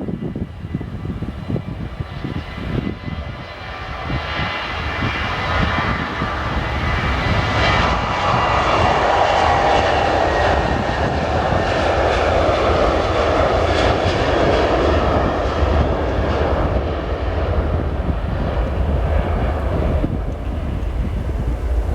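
Jet airliner passing by: its engine noise swells over the first several seconds, holds loud with a faint, slowly falling tone in it, then eases off near the end.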